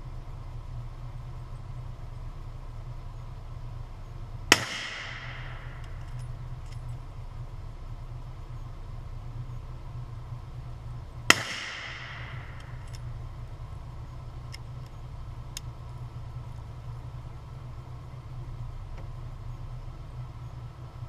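Two rifle shots from a Remington 770 bolt-action rifle, about seven seconds apart, each a sharp crack that rings out and fades over a second or so. A steady low rumble runs underneath.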